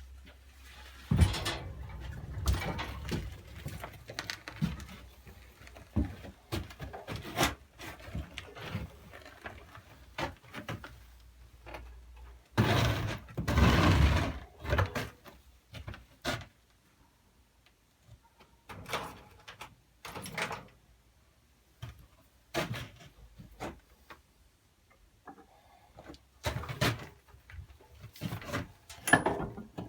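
Clanks, knocks and scrapes of an old walk-behind tractor being moved onto a service lift, with a low rumble through the first dozen seconds and a louder, longer scraping stretch a little before the middle.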